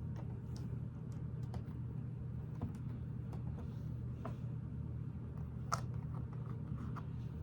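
Lego plastic pieces clicking and tapping as they are handled and pressed onto the model: scattered small clicks, with a sharper one near the end, over a steady low hum.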